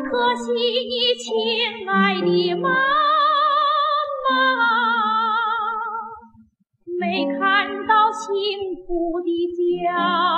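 A woman singing a song in a classical, operatic style, holding notes with a wide, even vibrato over accompaniment. The music drops out briefly about six and a half seconds in, then the singing resumes.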